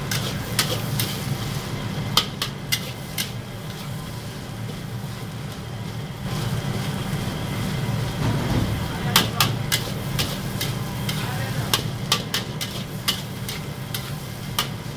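Metal wok spatula clanking and scraping against a wok as rice is stir-fried, with sizzling and a gas burner's steady low roar underneath. The clanks come in flurries, sparse through the middle, then quick again for the last few seconds.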